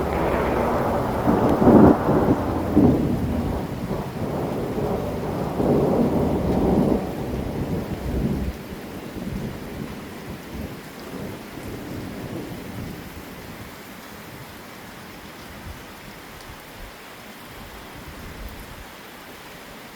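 A long roll of thunder over heavy rain, loudest in the first few seconds with a second swell about six seconds in, rumbling away by about nine seconds. After that only the steady hiss of rain remains.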